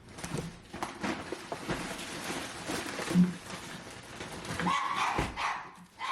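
Groceries being unpacked: bags rustling and items knocking, with a sharp click about three seconds in, and a short high whine about five seconds in.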